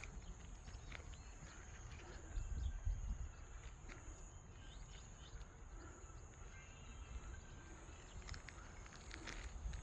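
Faint outdoor ambience: a steady high-pitched drone, like insects, over a low wind rumble on the microphone that swells briefly about two and a half seconds in, with scattered faint chirps and ticks.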